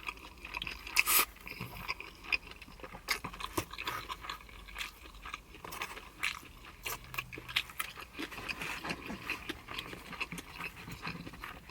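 A person chewing a mouthful of pan pizza, with irregular mouth clicks and smacks throughout.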